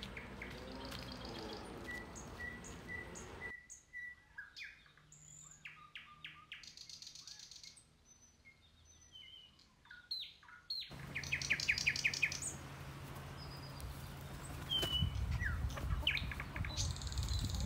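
Small wild birds chirping and singing, with short high notes and quick evenly repeated trills. The background changes abruptly twice, a few seconds in and again about two-thirds through.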